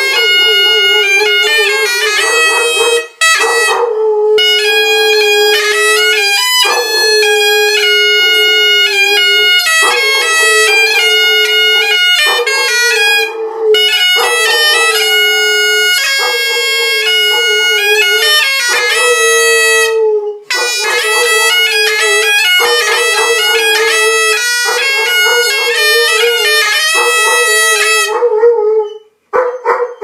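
A bagpipe tune playing loudly over a steady drone, with a dog howling along to it. The piping breaks off briefly a few times and stops near the end.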